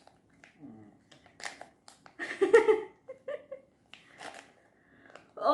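Packaging being handled and pulled open by hand: scattered short rustles and clicks, with a brief voice sound about two seconds in.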